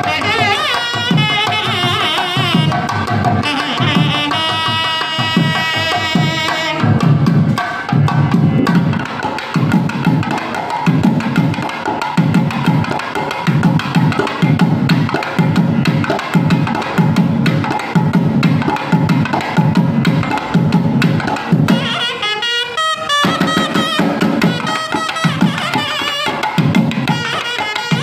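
Nadaswaram playing an ornamented melody with sliding, wavering notes over drum accompaniment. After about seven seconds a fast, steady drum rhythm takes over, and the pipe's wavering line returns briefly near the end.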